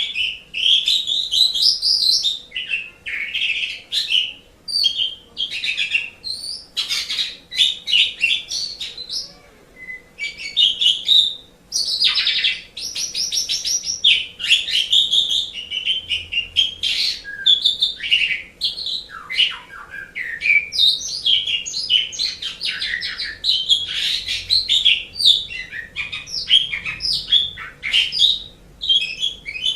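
Asian pied starling (jalak suren) singing a long, varied song of chirps, whistles and fast rattling notes, with only brief pauses.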